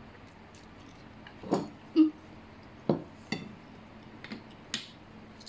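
Chopsticks knocking and clinking against a plate of noodle soup: about six short, separate clicks over a few seconds.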